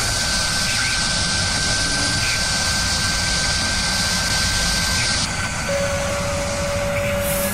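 Woodworking cutting machine running with a steady motor and air noise and a thin constant whine; the high hiss drops away about five seconds in, leaving a lower steady hum and a different tone near the end.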